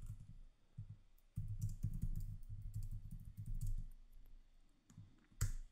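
Typing on a computer keyboard: a quick irregular run of keystroke clicks with dull low thuds under them, a burst in the middle and a few more keys near the end.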